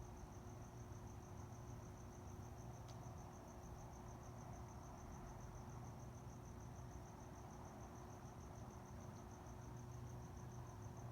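A cricket chirping faintly in a steady, fast, even pulse, over a low background hum.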